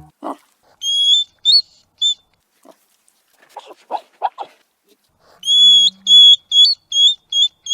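Hedgehog squeaking: high, piping squeaks, a few about a second in and a quicker run of them in the last two seconds, with a short burst of snuffling huffs in between.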